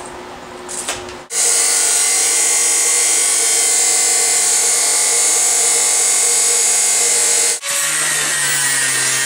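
A handheld power tool runs loud and steady, cutting the metal bar, starting about a second in. It stops briefly near the end, then runs on with a changed tone.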